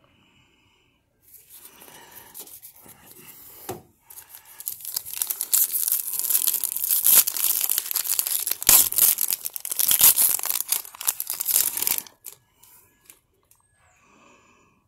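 A trading-card pack's foil wrapper being torn open by hand. Soft rustling starts about a second in, then loud crinkling and tearing runs from about four seconds until near the end, with a couple of sharp snaps.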